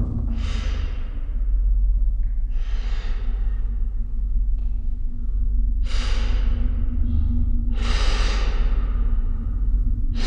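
A woman's heavy, panicked breathing: four sharp breaths about two seconds apart, each starting suddenly and trailing off, over a low steady drone.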